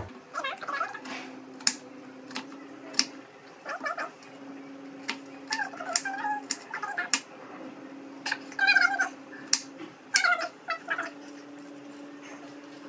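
Kitchen knife chopping onions on a wooden cutting board: irregular sharp chops. Between them come several short, high-pitched cries that bend in pitch.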